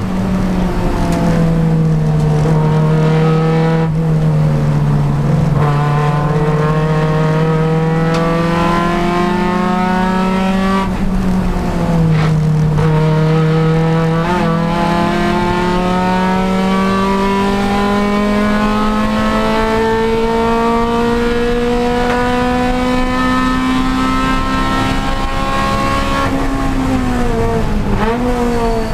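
Honda Civic Si race car's engine running hard under load, its pitch climbing slowly as it pulls and dropping sharply at about 1 s and about 11 s, with a long climb after that and a brief dip and wobble near the end.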